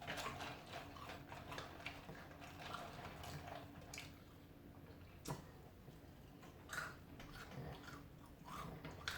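A person chewing a mouthful of crunchy peanuts close to the microphone: quiet, irregular crunches, with a few sharper cracks now and then.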